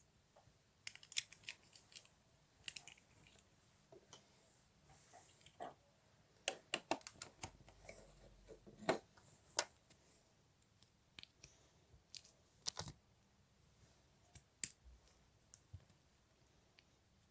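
Plastic LEGO bricks being handled and pressed together: scattered sharp clicks and taps, some in quick clusters, over a quiet background.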